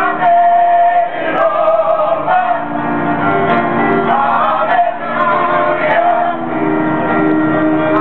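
Live music with singing: held notes underneath and a wavering sung melody line above.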